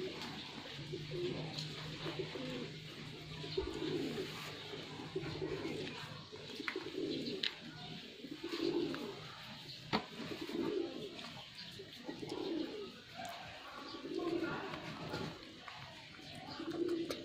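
A dove cooing, short low calls repeated every one to two seconds.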